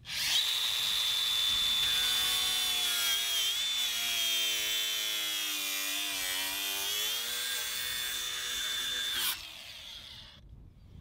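Angle grinder with a cutting wheel slicing through a PVC drain pipe. It starts up sharply with a high whine, which drops in pitch through the middle as the wheel bites into the pipe and then rises again. The grinder cuts off near the end.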